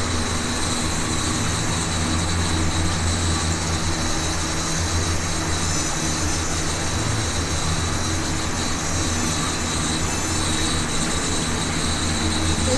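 Nano quadcopter's four small electric motors and propellers whirring steadily as it hovers, carrying an oversized battery.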